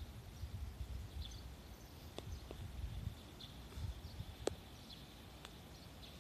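Faint outdoor ambience: an uneven low rumble with short high chirps every second or so and a few sharp clicks, the strongest about four and a half seconds in.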